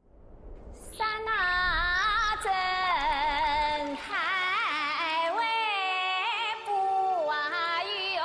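A woman singing the programme's theme song over instrumental backing, her voice wavering with heavy vibrato. The music fades in from silence during the first second.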